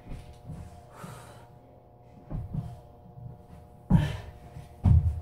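Hard breathing and gasps from exertion, with thuds of a person landing and dropping onto the floor during jump tucks. The two loudest thuds come near the end.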